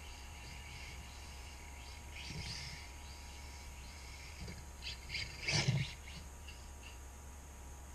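Brushless electric motor of a Carisma GT24B 1/24-scale RC car whining in short bursts as it is driven around. The loudest burst comes about five and a half seconds in, over a steady low room hum.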